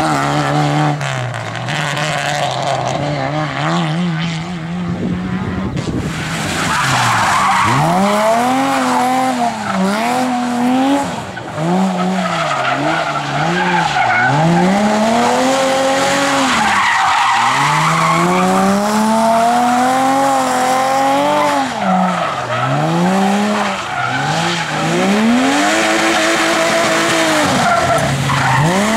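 Rally car engine driven hard. For the first few seconds it holds fairly steady revs, then the revs climb and drop again and again, about every two seconds, as the car accelerates and brakes through a run of corners. Tyres squeal and skid under it.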